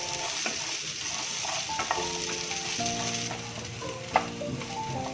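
Carrots and beans sizzling as they fry in oil in a pan and are stirred, with a sharp knock about four seconds in. Soft background music plays over it.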